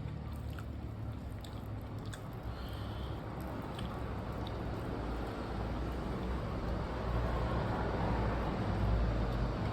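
Chewing on a mouthful of rice and curry, with faint small wet clicks, over a steady low rumble that grows a little louder near the end.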